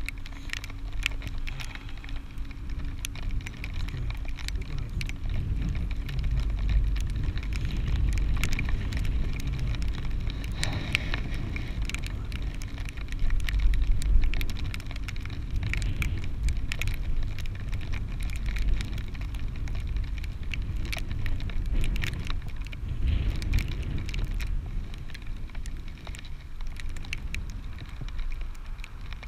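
Wind buffeting an action camera's microphone on a moving chairlift: a steady low rumble with scattered crackles and clicks, loudest about halfway through.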